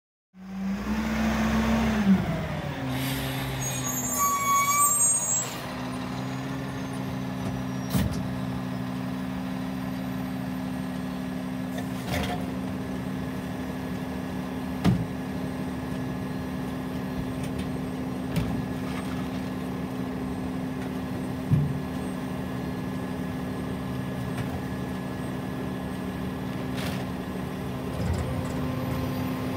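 Side-loading recycling truck's engine idling steadily, with scattered sharp knocks from recyclables and bins handled at the side hopper. The first few seconds are louder, with a whine that rises and then falls.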